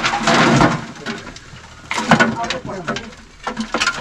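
A person's voice talking, with a few knocks and clatters in between.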